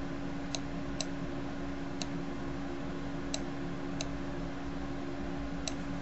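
Computer mouse button clicking as letters are drawn with the mouse: about six sharp, unevenly spaced clicks over a steady low hum.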